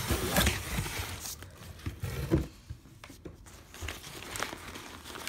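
Nylon drawstring bag rustling as a batting helmet inside it is lifted out of its box and handled, in irregular bursts with a brief louder one about two and a half seconds in, quieter in the second half.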